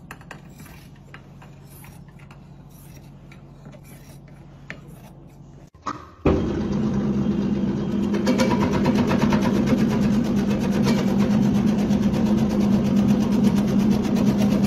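Faint scattered snips of scissors trimming a rug's cotton fringe. About six seconds in, an industrial meat slicer comes in loud, its motor humming steadily under fast, even ticking as the blade cuts the meat into thin slices.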